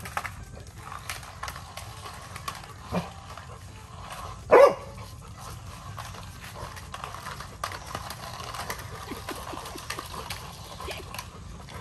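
A Labrador retriever puppy gives one short, loud bark about four and a half seconds in, with a softer call shortly before it, amid light rustling and scattered clicks.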